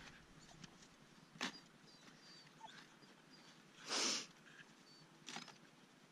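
Plastic recovery traction boards being shoved and knocked into packed snow under a stuck pickup's rear tire: a few short scrapes and crunches, the loudest a brief scraping crunch about four seconds in. Faint high whining from dogs runs underneath.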